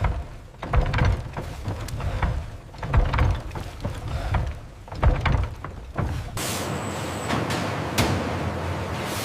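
Industrial machinery: irregular heavy thuds and clunks with sharp clicks, then about six seconds in a steady mechanical noise starts with a brief high whine on top.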